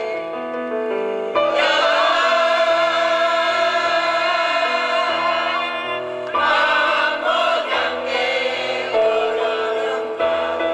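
Mixed choir of elderly men and women singing together over a steady instrumental accompaniment. The voices swell louder about a second and a half in and again around six seconds.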